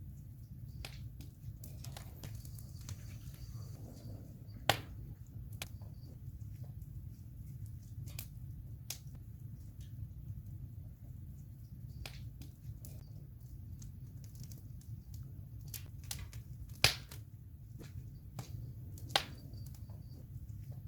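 Wood campfire crackling, with scattered sharp pops over a steady low rumble. Three pops stand out as much louder, the loudest about two thirds of the way through.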